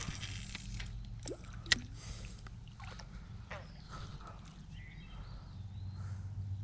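Low steady outdoor rumble with scattered small clicks and one sharp click just under two seconds in.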